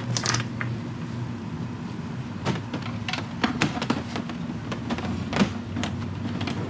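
Scattered light clicks and taps of a solar panel cable and its connectors being handled and uncoiled, over a steady low hum.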